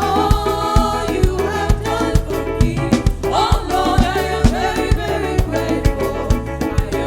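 Live upbeat gospel praise music: a band with a steady, driving drum beat and keyboard, with singing over it.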